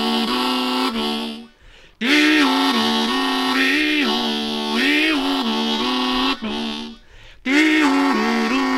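Harmonica played solo: phrases of chords whose notes bend up and down, broken by two short pauses about a second and a half in and near the end.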